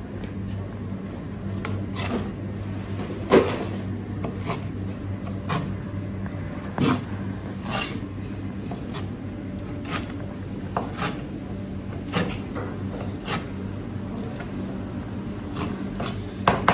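Kitchen knife cutting cobia fillet into cubes on a cutting board: irregular knocks of the blade striking the board, about one a second, the loudest about three seconds in. A steady low hum runs underneath.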